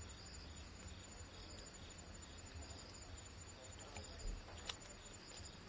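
Crickets chirping, a faint steady high trill, with a couple of soft clicks near the end.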